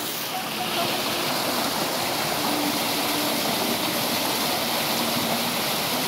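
Small waterfall pouring over boulders into a rock pool: a steady, unbroken rush of falling and splashing water.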